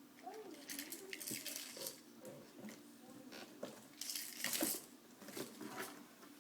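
Toys and a box being handled by a baby: scattered bursts of clicking and clattering, the loudest about four seconds in, with a short vocal sound near the start.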